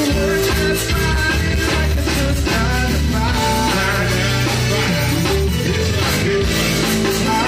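Live zydeco band playing: accordion, electric bass guitar and drums with a steady dance beat.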